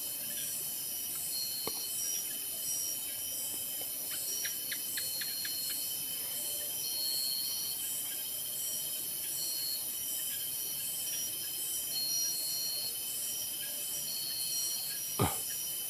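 Night insects, crickets among them, keep up a steady high-pitched chorus with a short trill repeating every couple of seconds. A quick run of faint ticks comes about four seconds in, and a single sharp knock sounds near the end.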